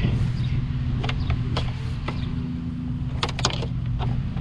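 7-inch FlorCraft tile wet saw running with a steady motor hum, blade spinning free in its water tray. Sharp clicks sound over it, with a cluster of them about three seconds in.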